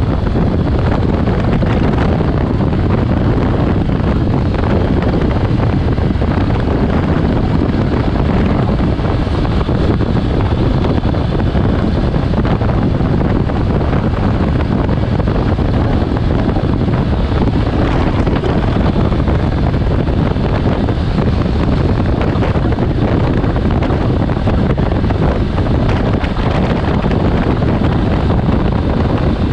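Steady, loud wind noise rushing over the microphone of a camera on a moving motorcycle, drowning out most of the engine.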